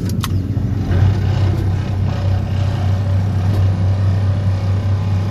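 DPD350T vibratory pile hammer on an excavator running while driving a steel sheet pile: a loud, steady low drone that grows stronger about a second in.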